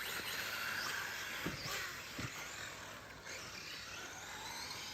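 Electric RC short course trucks racing: their motors whine, the pitch rising and falling as they accelerate and brake, with a couple of brief thumps about a second and a half and two seconds in.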